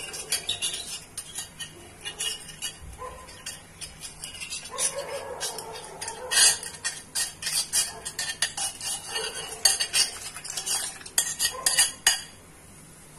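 Repeated clinks and scrapes of a utensil against a bowl and an aluminium kadhai as the last of the paste is scraped into the water. The clatter is irregular and dies away about twelve seconds in.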